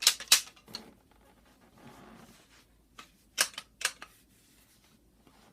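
Large tongue-and-groove pliers being adjusted: sharp metal clicks and clacks as the jaw is moved along its grooves, a cluster at the start and a few more about three seconds in.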